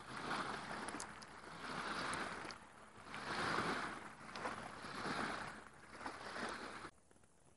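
Small lake waves washing onto the shore, a swell of surf about every second and a half, cutting off abruptly near the end.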